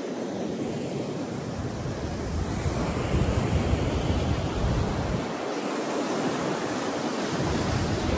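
Ocean surf breaking and washing up on the sand, with wind rumbling on the microphone. The surf grows louder about three seconds in.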